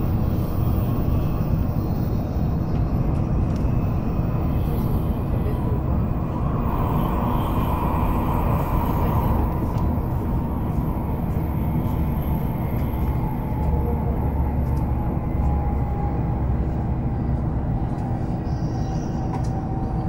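Cabin noise inside an N700 series Shinkansen: the steady rumble of wheels and running gear on the track. In the second half a faint whine slowly falls in pitch as the train slows on its approach to a station stop.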